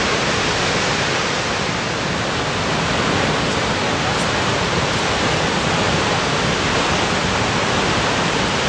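Vøringsfossen waterfall, a steady, even rush of heavily falling water with no let-up.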